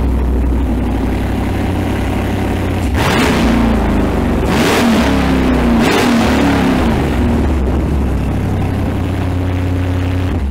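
Mopar Gen III HEMI V8 crate engine running at a steady idle, blipped into several quick revs between about three and seven seconds in, then settling back to idle.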